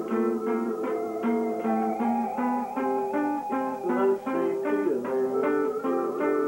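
A plucked string instrument played lying flat: a steady run of single plucked notes over ringing lower notes, with a short sliding note about five seconds in.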